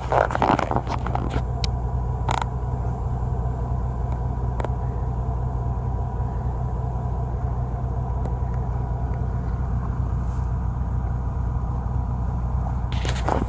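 Fishing boat's engine running steadily at idle: a constant low rumble, with a few short knocks and clicks over it.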